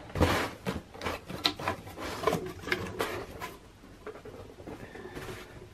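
Cardboard being handled: a shoebox lifted out of a corrugated shipping box, with rustling, scraping and light knocks that die down after about three and a half seconds.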